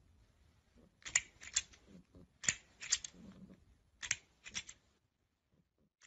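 Plastic toy crocodile clicking and clacking as a cat bats at it, in quick runs of three sharp clicks about every second and a half.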